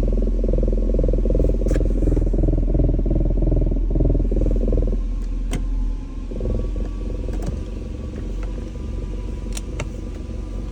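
BMW E39 540i's V8 engine running with a heavy rumble and a rapid knocking and vibration, the strange knock the owner gets when the car is in reverse or drive. The knocking eases and the rumble drops about six seconds in, with a few sharp clicks.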